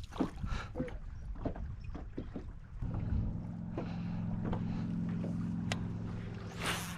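A boat motor hums steadily at a low, even pitch, starting about three seconds in after a few light knocks and clicks on the boat. A brief rush of noise comes near the end.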